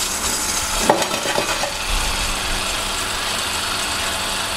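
Bench-top ceramic disc pulverizer running steadily: an electric motor hum under a continuous hiss of the ceramic discs spinning against each other, with a brief knock about a second in.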